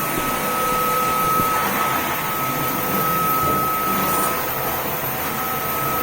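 Dreame G10 Pro wet-dry vacuum mop running as it cleans a tile floor: a steady motor whine over the hiss of suction. The whine briefly drops away a little after four seconds in.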